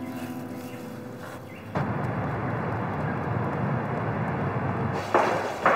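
A lingering piano chord fades out, then a steady rush of vehicle traffic noise cuts in abruptly about two seconds in, with a few sharp knocks near the end.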